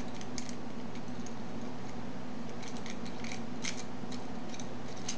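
Small irregular metallic clicks and scrapes of a rake pick working the serrated pins of a five-pin dimple euro lock cylinder under light tension, over a steady hum.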